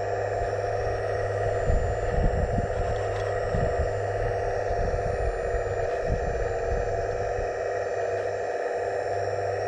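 Hydraulic pump of a 1/15-scale RC excavator running with a steady whine, with irregular low rumbles and knocks from about two seconds in until near the end.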